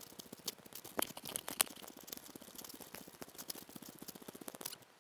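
Fast, even rustling and pattering right at the microphone of a hand-held camera carried by a walker, with a few sharp clicks about a second in and again near the end.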